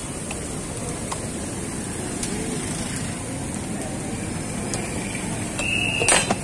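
Steady background din of a busy food stall with faint voices, scattered light clicks of metal utensils, and a sharp clack near the end, just after a brief high tone.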